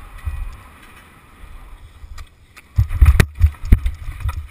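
Low wind rumble on a helmet-mounted camera as a BMX bike rolls off the start hill, then several loud thumps and knocks from about three seconds in as the rider crashes onto the grass.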